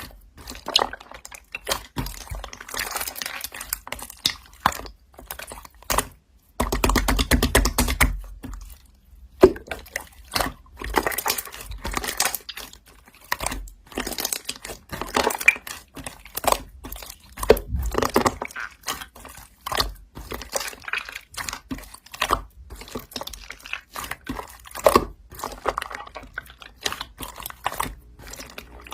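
Slime being squished and pressed by hand, making wet, irregular clicks and crackling pops, with a denser run of rapid clicks about seven seconds in.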